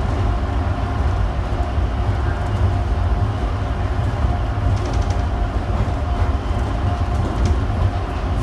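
Shanghai Pujiang Line rubber-tyred automated people-mover train (Bombardier Innovia APM 300) running at speed on its concrete guideway, heard from inside the front of the car as a steady low rumble.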